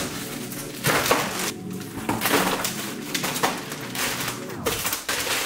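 Plastic packaging and paper crinkling and rustling in irregular bursts as a cardboard meal-delivery box is unpacked by hand.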